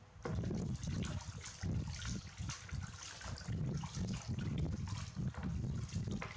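Water trickling and splashing unevenly, with many small splashes, as a baby monkey is washed.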